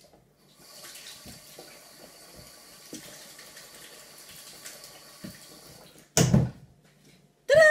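A tap running water into a sink while hands are washed, a steady hiss with small splashes. It stops about six seconds in, followed by a sudden loud thump and, at the very end, a brief loud high-pitched sound.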